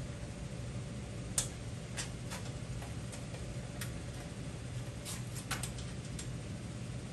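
Light metallic clicks and taps, irregular and about seven in all, the sharpest about a second and a half in, as a bolt and nut are fitted through the bolt holes of a steel motorcycle frame, over a steady low hum.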